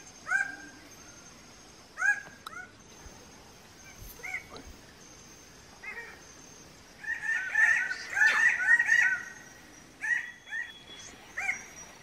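Male red birds of paradise calling at their display tree: loud, short arched notes every second or two, swelling about two-thirds of the way through into a burst of many overlapping calls from several birds.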